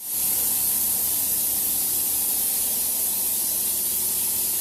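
A loud, steady hiss of rushing air or spray, with a faint low machine hum beneath it.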